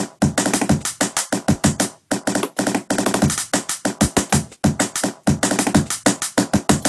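Music: a busy looped beat of fast percussive hits with pitched tones layered over it, dropping out for a moment about two seconds in.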